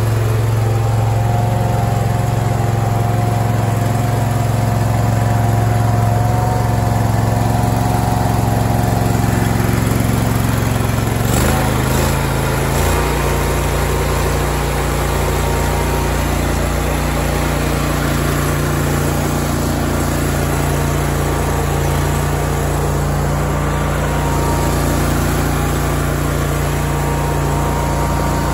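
Engine of a 36-inch hydrostatic walk-behind mower running steadily on its first start. The engine note shifts about twelve seconds in, then runs steadily again.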